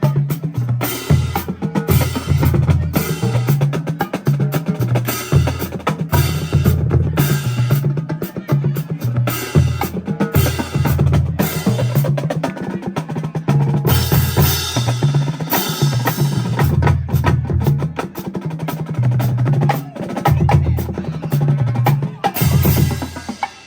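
Marching drumline playing a cadence: rapid snare drum strokes over tuned bass drums that step through different pitches. It stops abruptly near the end.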